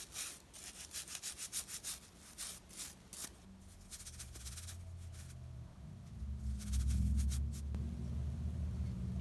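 Quick repeated rubbing strokes on a small metal multi-tool (Leatherman Squirt PS4) as dust and grime are scrubbed off it, for about the first three seconds. A low rumble follows in the second half, loudest about seven seconds in.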